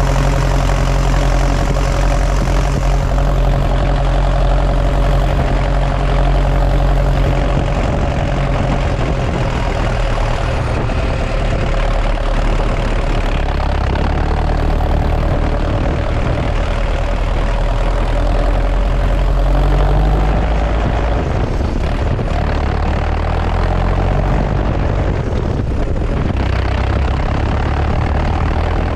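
New Holland T5050's four-cylinder diesel engine running while driving, heard close to its upright exhaust stack. The engine note is loud and steady, stepping to a different pitch several times: about halfway through, and twice more near the end.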